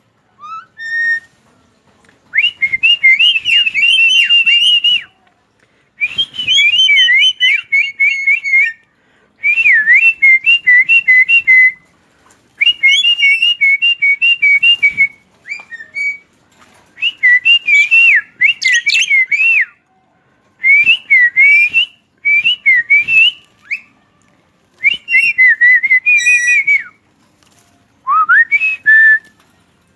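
Javan myna singing: bouts of warbling whistles and fast chatter, each two to three seconds long, repeated about nine times with short pauses between.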